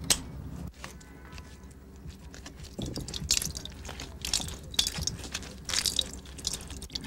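A sharp snip of shears cutting a lemon from its branch right at the start, then a knife cutting into a juicy lemon over a jug: a string of wet, crunchy cutting strokes with juice dripping.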